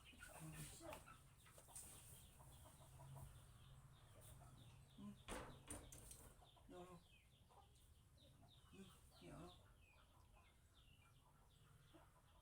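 Faint chickens clucking in the background, with many short high chirps and a couple of sharp knocks about five seconds in.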